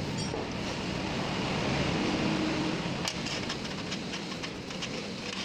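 A steady mechanical hum, with a run of light metallic clinks starting about three seconds in.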